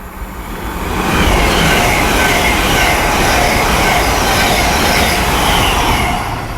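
GWR Class 802 intercity express train passing at speed: a loud rush of wheel and air noise that builds about a second in, holds steady, and fades near the end.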